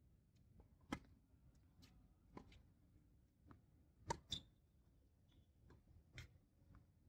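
Tennis ball bouncing and being struck on a hard court: a few faint, sharp knocks about a second or so apart, the loudest close pair about four seconds in as the serve is hit.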